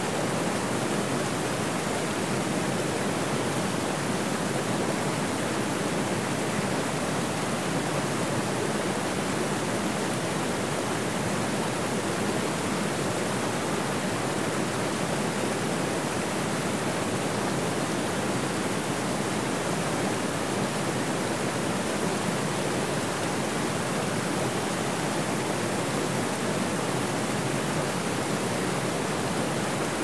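Small waterfall and mountain stream running over rocks: a steady, even rushing of water.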